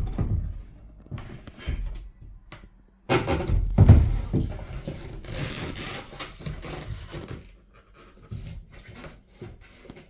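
Irregular handling sounds of hard parts: rubbing and scraping with scattered knocks, the loudest a heavy knock about four seconds in.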